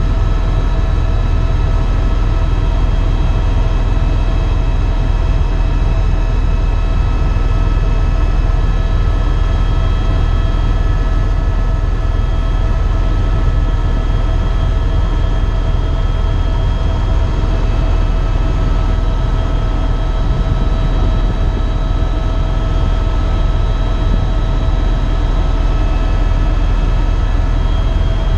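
Eurocopter EcoStar (EC130) helicopter running steadily, heard inside the cabin: a heavy, even low rotor rumble with a steady turbine whine over it.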